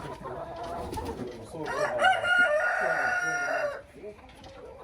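A rooster crowing once, a loud call about two seconds long starting a little under two seconds in.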